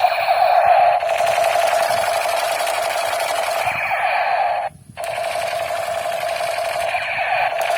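Battery-powered toy gun buzzing and rattling steadily in rapid fire, cutting out for a moment about five seconds in and then starting again.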